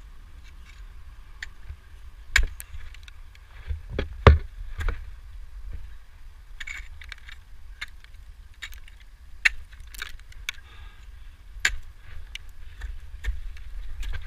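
Ice tools and crampons striking ice in irregular knocks, the loudest a few seconds in, with metal climbing gear clinking between them.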